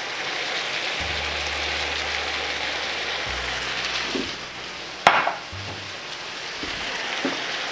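Sliced bell peppers, carrots, onions and tomatoes sizzling steadily in vegetable oil in a frying pan, with one sharp knock about five seconds in.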